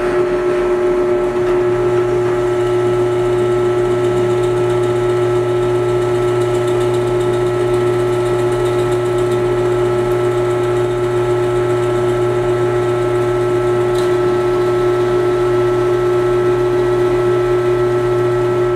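Drill press motor running with a steady whine and hum while a 3/4-inch bit is fed through soft maple. One sharp tick late on.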